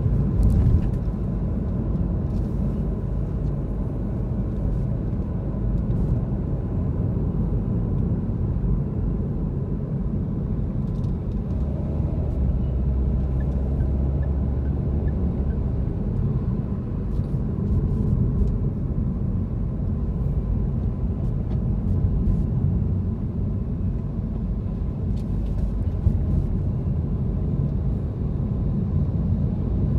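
Steady low rumble of a car driving in city traffic, engine and tyre noise, with a deeper hum swelling briefly near the middle.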